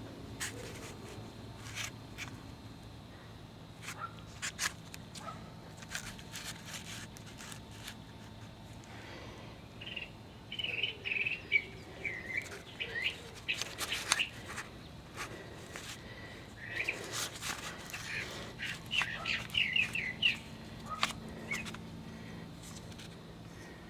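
Birds chirping in two spells of short phrases, with scattered sharp clicks and taps of hand work throughout.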